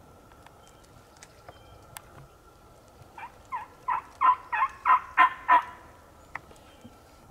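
A wooden turkey box call worked by hand, giving a run of about eight hen yelps at roughly three a second, starting about three seconds in. Each yelp breaks from a low note to a higher one, and the run grows louder as it goes.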